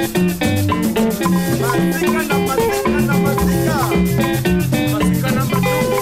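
Swahili dance-band rumba music: guitar lines with bent notes over a bass line and drums, kept in time by a steady shaker.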